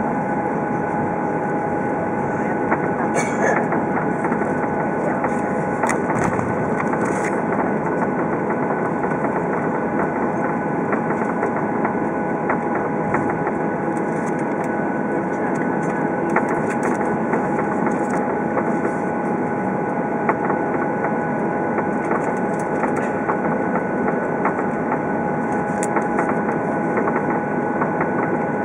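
Steady cabin noise of a Boeing 737-800 taxiing, heard from a window seat over the wing: the CFM56-7B engines running at taxi power, a steady whine over an even rumble, with a few faint clicks in the cabin.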